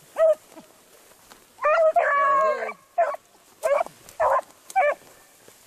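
Beagle hound baying while trailing a rabbit: a run of short bays with one longer drawn-out bawl about two seconds in.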